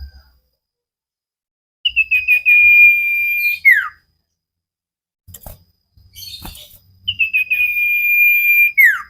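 Common iora (cipoh) singing two phrases, one about two seconds in and one about seven seconds in. Each phrase is a few quick falling notes that run into a long, steady, high whistle and end in a sharp downward slur. Faint scattered clicks fall between the phrases.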